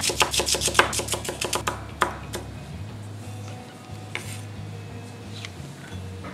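Knife rapidly chopping onion on a wooden cutting board, about seven quick strikes a second, stopping about two and a half seconds in. After that come a few scattered knocks and a soft scrape as the chopped onion is gathered up.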